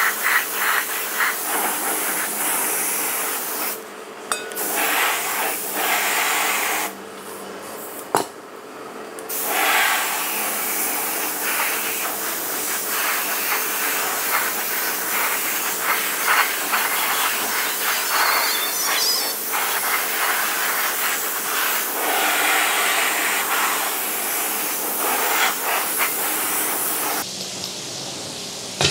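Gravity-feed air spray gun hissing as it sprays paint onto a motorcycle wheel, in passes broken by two short pauses early on, then running steadily and stopping shortly before the end.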